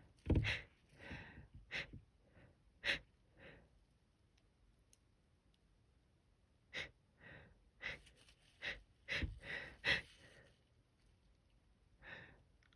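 A person's short, sharp hitching gasps and breathy exhales, coming in two clusters with a quiet gap between them: a sneeze building up and being held back.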